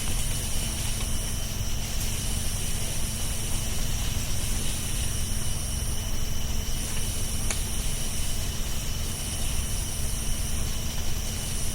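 Outdoor ambience: a steady low rumble and hiss, with a high-pitched buzz that comes in stretches of about a second and a half, repeating every two seconds or so.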